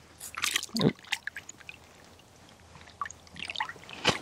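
Water splashing and sloshing in an ice-fishing hole as a hooked brook trout thrashes at the surface, in irregular bursts about a quarter second to a second in and again near the end.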